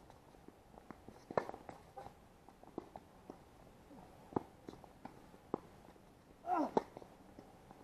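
Tennis ball struck by rackets and bouncing on a hard court during a rally: sharp pocks every second or so. A short squeal, such as a shoe on the court, about six and a half seconds in.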